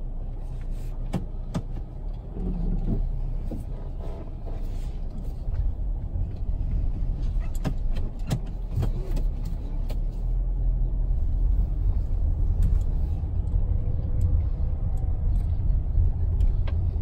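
Car interior noise while driving slowly: a steady low rumble of engine and tyres, with scattered clicks and knocks.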